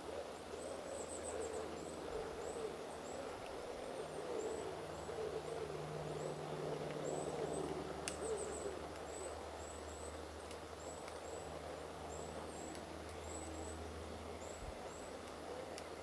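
Birds calling: low, wavering hooting calls, strongest in the first half, over a run of thin, very high chirps repeating a few times a second.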